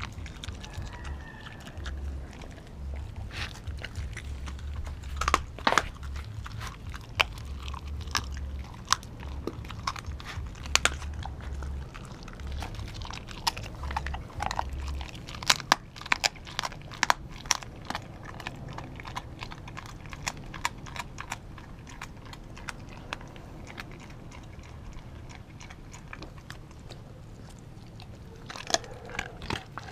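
Pitbull–German shepherd mix dog chewing and crunching raw meat right at the microphone, with many sharp crunches, thickest around the middle.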